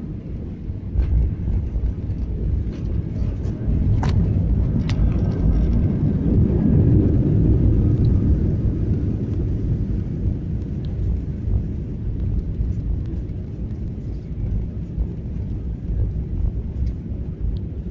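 Low rumble and roar of an airliner's cabin during the landing roll, swelling to its loudest around the middle and then easing off, with a couple of sharp clicks about four and five seconds in.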